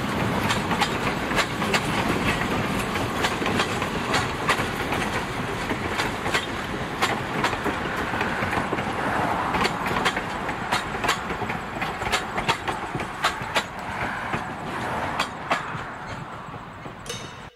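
East Broad Top narrow-gauge passenger cars rolling past, a steady rumble of steel wheels on rail with many sharp clicks and clatters from the wheels crossing rail joints. The sound fades over the last few seconds as the last car goes by.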